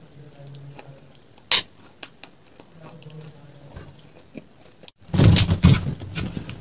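Metal spoon digging and scraping through a crumb-topped layered ice cream dessert in a glass, loud and close to the microphone, starting about five seconds in. Before it, a quiet stretch with a faint low hum and one sharp click.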